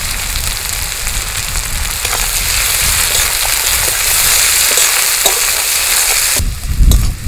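Curry leaves and sliced onions sizzling in hot oil in a metal kadai while a spatula stirs them, with a few small clicks of the spatula against the pan. The sizzle cuts off suddenly near the end, leaving a few low thumps.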